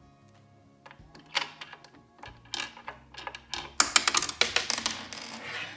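Clicking and rattling of a sewing machine's plastic cover and small parts being handled and refitted: a few separate clicks early on, then a dense run of clatter in the second half.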